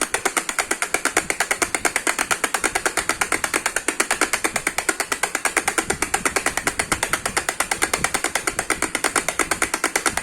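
Baby rattle (jhunjhuna) shaken fast and steadily, its beads clattering many times a second in an even rhythm.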